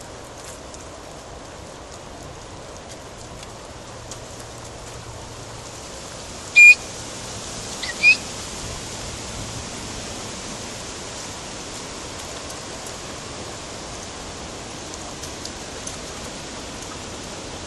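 Steady hiss of outdoor noise on a handheld phone while walking with a pack of dogs on a woodland path. About a third of the way in come two short, sharp, high-pitched squeaks about a second and a half apart, the second rising in pitch; these are the loudest sounds.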